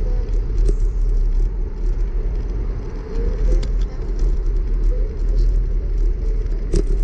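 Wind rumbling on a handlebar-mounted camera's microphone as a bicycle rides along, with tyre and road noise and a few short knocks.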